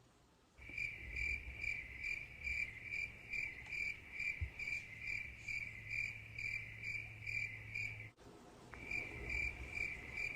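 An insect chirping steadily in a rapid, even pulse of about three chirps a second, typical of a cricket. It cuts off abruptly a little after eight seconds in and starts again about a second later.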